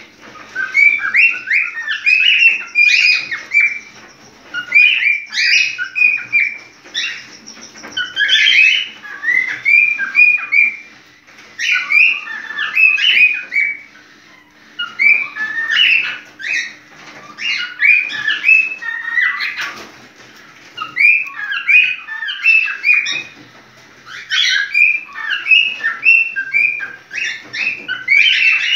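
Cockatiel giving its breeding-season, in-heat call: bouts of rapid chirps and whistles, each lasting a couple of seconds, repeating with short pauses between them.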